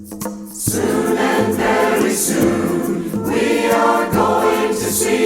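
Percussion ticks a steady beat, then, under a second in, a church choir comes in singing a gospel song, with the percussion keeping time underneath.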